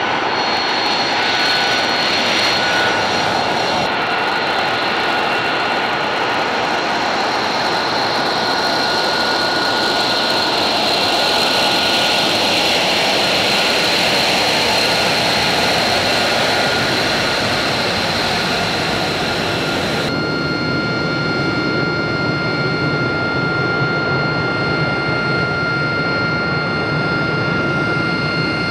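F-35B jet engine (F135 turbofan) running at taxi power: a loud, steady rushing noise with a high whine over it. About twenty seconds in the sound changes abruptly to a cleaner cluster of steady high whine tones.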